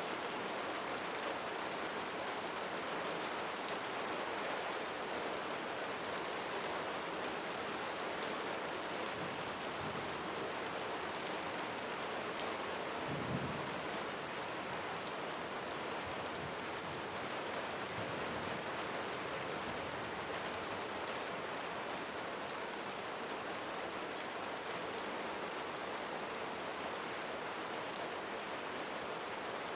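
Steady rain falling on foliage, with fine drips and patter throughout. There is a brief low rumble about thirteen seconds in.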